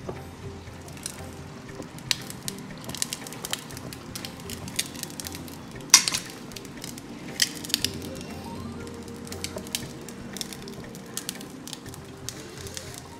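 Hand-held idiyappam press squeezing rice-flour dough through its fine mesh, with irregular clicks and crackles as it is worked; the sharpest click comes about six seconds in. Faint background music runs underneath.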